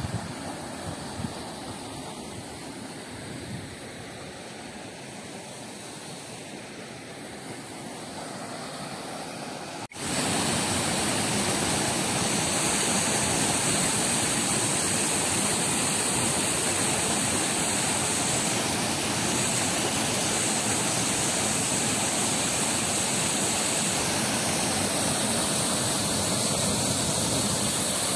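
Rushing water of a stream cascading over rocks, a steady rush. About ten seconds in it cuts abruptly to the louder, fuller rush of a waterfall pouring into a pool.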